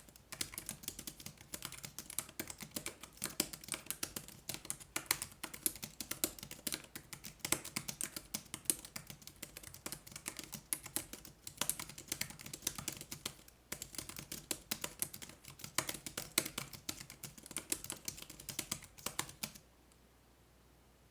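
Continuous typing on a NILLKIN Cube Pocket foldable Bluetooth keyboard: fast, irregular key clicks with a few louder strokes. The typing stops about a second and a half before the end.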